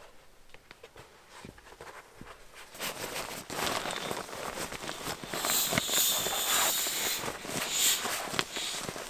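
Inflatable sleeping pad being rolled up and pressed flat to squeeze the air out: crinkly fabric rustling with a hiss of escaping air. It is faint with a few soft clicks at first and gets much louder about three seconds in.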